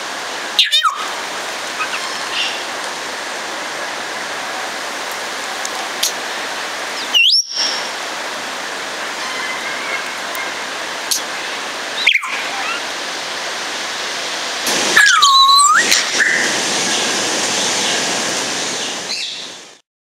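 Congo African grey parrots giving a few short whistles that slide in pitch over a steady rushing background noise. The loudest whistle, about fifteen seconds in, swoops down and back up. The sound fades out near the end.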